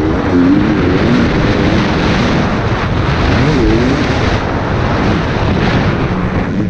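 KTM 250 EXC TPI single-cylinder two-stroke engine being ridden hard, its pitch rising and falling as the throttle is worked through the track's turns, over steady wind rush on the helmet microphone.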